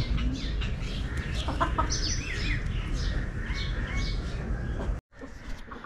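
Bantam rooster clucking in short calls, a cluster about two seconds in and a few more near four seconds, over a low steady background rumble.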